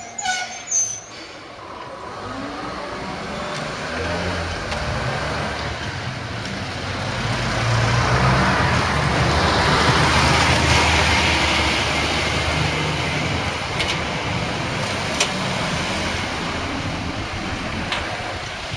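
Road traffic at a level crossing: a motor vehicle's engine and tyres rumble, swelling to a peak about ten seconds in and then slowly easing, after a few sharp clicks at the start.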